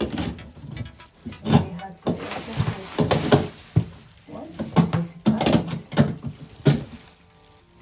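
Irregular knocking, scraping and rustling of hands working at a tightly taped cardboard box, trying to break its seal.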